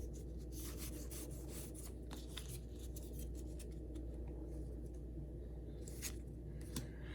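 Pokémon trading cards sliding and rubbing against each other as a pack's stack is flipped through by hand: faint, soft, irregular swishes over a steady low hum.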